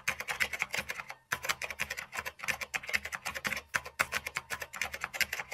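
Typing sound effect: a fast run of key clicks, several a second, with a short break about a second in.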